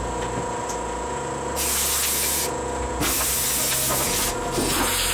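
Compressed-air blowgun blowing loose rust and paint debris off a metal toolbox, in several separate bursts of hissing air about a second long each.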